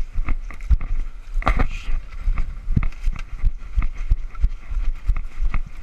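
Footsteps of a person running, an irregular series of thuds and knocks with rustling, over a steady low rumble on the microphone.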